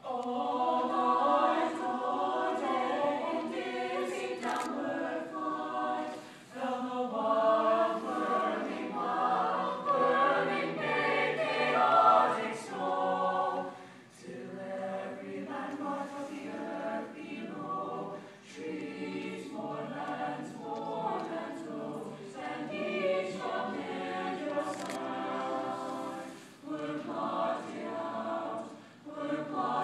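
Mixed chamber choir singing in harmony, coming in right at the start. The opening phrases are louder, and after a short dip about fourteen seconds in the singing goes on more softly.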